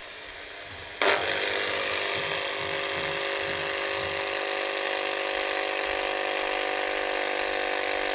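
AM radio tuned to the top of the AM band (about 2 MHz) hissing softly, then about a second in suddenly jumping to loud, steady static with a buzz of several steady tones: radiated electromagnetic interference from specialty lighting picked up by the radio.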